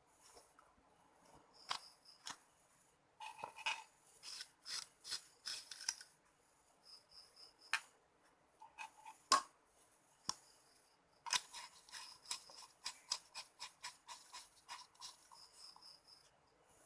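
Rapid runs of small, sharp snips and clicks from hand tools working on small electronic parts, one run about three seconds in and a longer one about eleven seconds in, with a few single clicks between.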